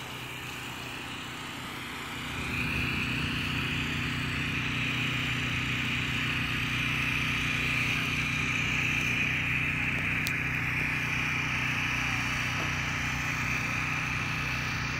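A steady engine hum with a steady hiss above it, growing louder about two and a half seconds in and then holding level.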